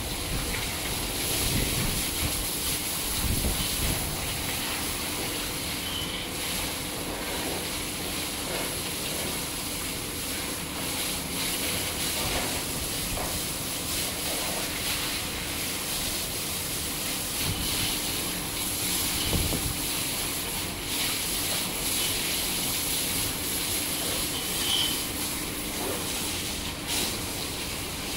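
Water from a hose spraying over a bull's hide and splashing onto the rubber floor mat and concrete: a steady hiss, with a faint low hum underneath.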